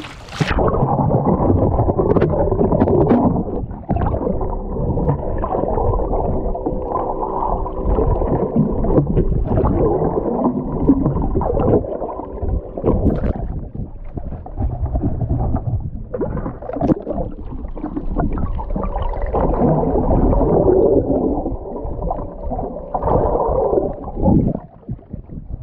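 Muffled, churning sea water sloshing and gurgling, heard with the microphone under water beside the boat. A faint steady hum comes and goes.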